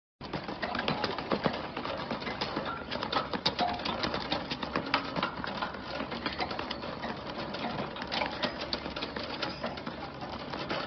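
Dense, irregular clattering and clicking of a wire shopping cart as a dog bounces on its hind legs inside it, its claws and the wire cage rattling.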